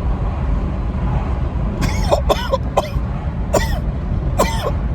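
A person hiccuping: about five short, sharp hiccups in a loose series starting about two seconds in, over a steady low rumble.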